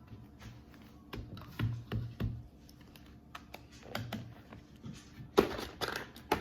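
Play-Doh cloud slime being squished and stretched by hand, giving irregular small sticky clicks and pops, with one louder knock about five seconds in.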